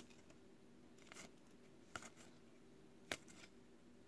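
Near silence with a faint steady hum, broken by a few soft ticks of trading cards being handled; the sharpest comes about three seconds in.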